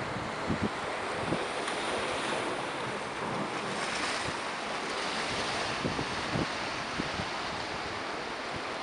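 Small sea waves washing in and breaking over shoreline rocks, swelling to a splash about four seconds in, with wind buffeting the microphone now and then.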